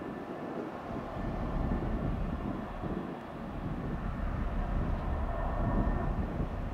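Low, steady drone of passing ships' engines, with wind buffeting the microphone in uneven gusts.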